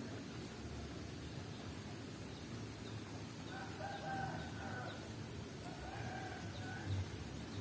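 A rooster crowing faintly, a long call about three and a half seconds in and a shorter one about two seconds later.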